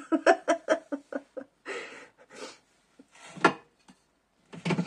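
A woman's short laugh, a quick run of voiced bursts in the first second or so, followed by a few breathy exhalations and a brief voiced sound near the end.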